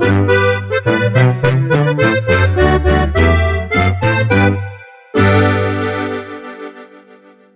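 Instrumental ending of a Mexican corrido: accordion over a bass line in a steady beat. The music breaks off just before five seconds in, then one final held chord rings and fades away.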